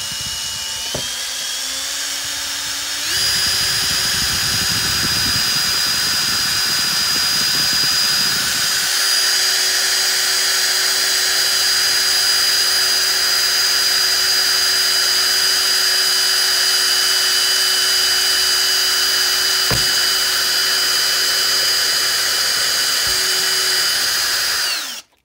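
Cordless drill with a 3 mm bit boring through a plastic seat-back panel and nylon clip. The motor whine steps up in speed over the first few seconds, then runs steadily at full speed, with a rougher cutting noise for several seconds as the bit bites, until it stops suddenly near the end.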